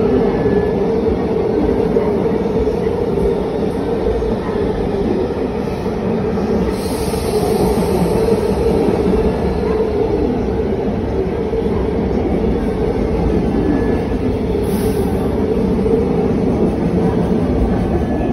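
Electric multiple-unit train running along the platform track, a steady rumble of wheels on rail with a constant drone. Two short hisses come through it, one about seven seconds in and a brief one near the end.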